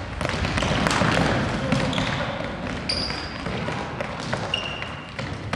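Indoor futsal play on a wooden gym floor: ball kicks and thuds, with sneakers squeaking briefly twice and players calling out, all echoing in the large hall.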